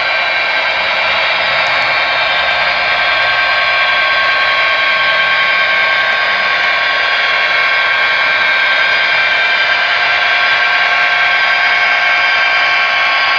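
HO scale model diesel locomotive and train running on the layout track with a steady, even whir that holds a few fixed tones throughout.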